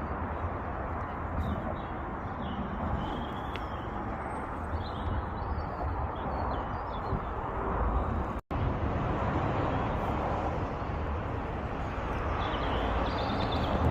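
Outdoor ambience: a steady low rumble and hiss, with small birds chirping now and then. The sound drops out for an instant about two-thirds of the way through.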